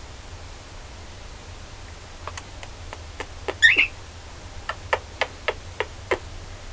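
Pet bird giving one short chirp about three and a half seconds in, amid a run of sharp clicks, about a dozen scattered over the second half.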